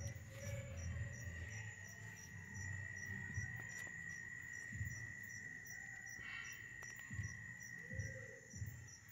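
Night insects, crickets among them, trilling: a steady high drone with a quick, regular chirping above it. A few low bumps of handling noise come about five, seven and eight and a half seconds in.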